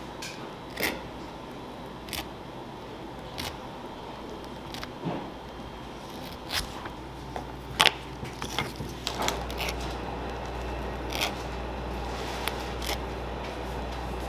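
Light, irregular clicks and taps of handling as macaron shells are picked up and set on a wooden table and a plastic piping bag of buttercream is squeezed, over a low steady hum that swells a little about two-thirds of the way through.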